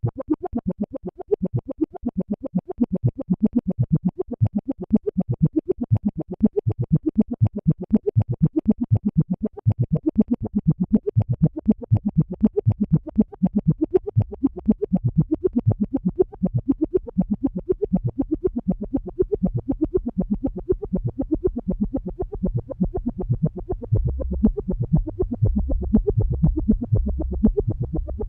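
Dave Smith Instruments Prophet '08 analog synthesizer playing a fast, even stream of short notes that move up and down in pitch. A low bass part comes in about halfway through and grows louder near the end.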